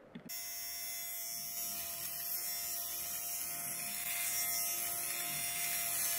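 BEAUTURAL electric fabric shaver running on its second-highest setting, a steady whir with a thin hum as its rotating blades shave lint balls off a cotton sweatshirt. It starts abruptly just after the beginning.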